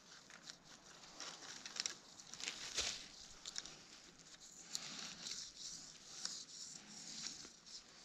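Gloved hands working a wire rabbit snare around a small tree trunk: faint scratching and rustling of wire and gloves against bark, with a couple of sharper scrapes about two and three seconds in.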